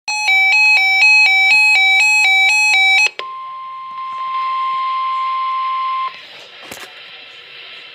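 Weather radio alert tones. First an electronic alarm warbles between two pitches, about two high-low cycles a second, for three seconds. It breaks off into a steady single tone near 1 kHz, the NOAA Weather Radio warning alarm tone, which lasts about three seconds and cuts off. Faint hiss and a single click follow.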